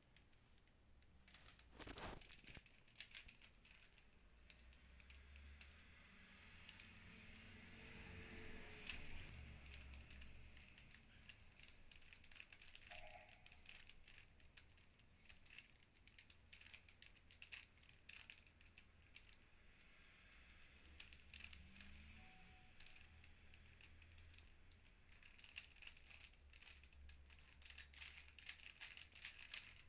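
Quiet, irregular clicking and clacking of a plastic 3x3 puzzle cube being turned by hand, its layers snapping round in quick runs of turns.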